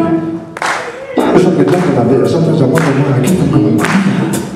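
Live band music: a male voice vocalises into a hand-cupped microphone over sharp, irregular percussive hits.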